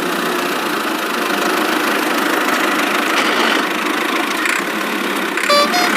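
Vehicle engine sound effect running steadily, with a short two-note horn beep, the second note higher, near the end.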